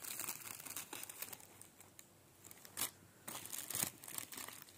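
Thin plastic bag crinkling and rustling under hands handling a necklace on its display card, in uneven spells, with a quieter pause about two seconds in and sharper crackles near three and four seconds.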